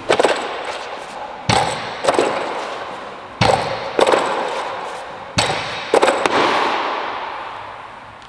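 Loaded barbells being dropped onto a weightlifting platform: sharp crashes that come in pairs about half a second apart, roughly every two seconds, each ringing out in the reverberant gym hall.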